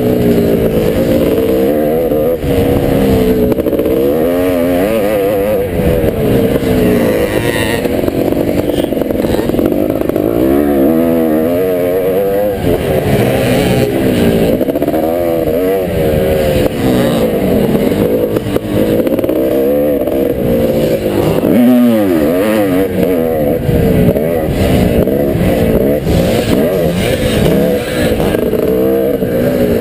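Onboard sound of a motocross bike's engine under hard riding, its pitch rising and falling over and over as the rider revs out of turns and backs off.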